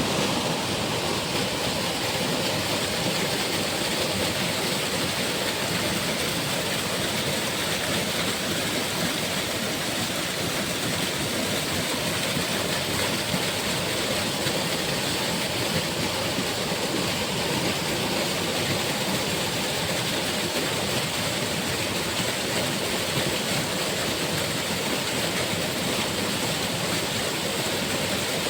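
Continuous, steady rushing noise with no breaks or rhythm, even throughout.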